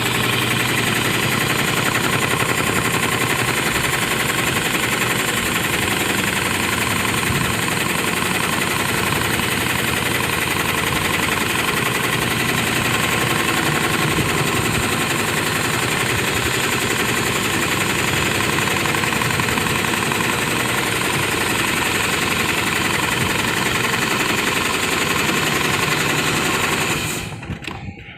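Industrial seat belt sewing machine (AXIS 273-6040) running continuously at speed: a loud, steady mechanical clatter. It stops about 27 seconds in.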